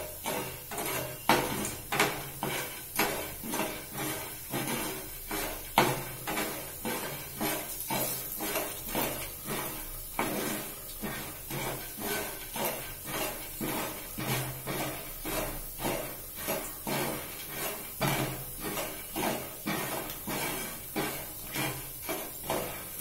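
Metal spoon scraping and stirring dry corn kernels in oil around a frying pan, about two strokes a second, before the kernels start to pop.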